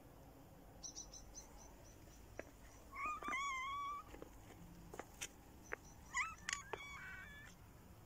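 A pet animal's cries: a short run of high chirps early on, then a held, wavering cry lasting about a second, and near the end a shorter cry that bends up and down in pitch, with a few soft clicks between them.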